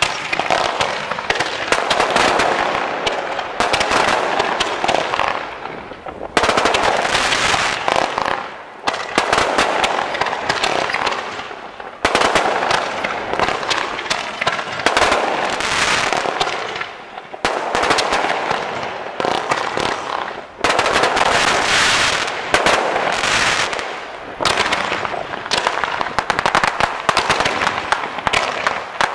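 Fireworks going off in rapid volleys: dense crackling and popping that surges and eases every few seconds.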